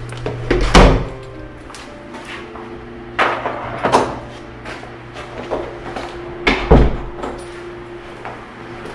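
Knocks and thumps of a wooden interior closet door being handled, the loudest about a second in and again near seven seconds, over steady background music.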